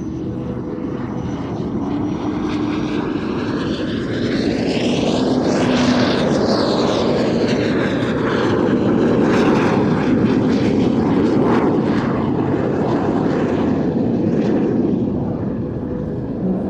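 Soko G-2 Galeb jet trainer's Rolls-Royce Viper turbojet flying past, the sound building to its loudest about six seconds in, with sweeping tones that fall away after it passes closest, staying loud and then easing near the end.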